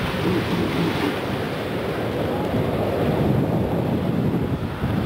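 Steady wind buffeting the microphone over the rush of waves and spray as boats drive through a choppy sea.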